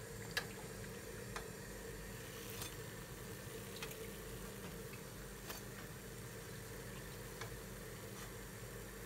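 Faint, steady sizzle of hot frying oil in a pan, with a few sharp, scattered pops.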